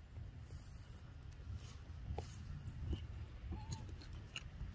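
Macaques giving a few thin, high calls: short upward squeaks about two and three seconds in, then a brief arched coo a little later, over a steady low rumble and faint scattered ticks.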